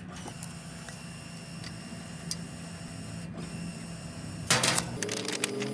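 A steady mechanical hum with a few faint clicks, broken about four and a half seconds in by a short, loud, noisy burst.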